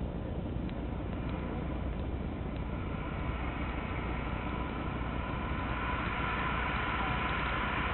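Steam locomotive and its train running past: a steady low rumble, with a higher rushing sound and faint tones that grow louder over the second half as the train draws nearer.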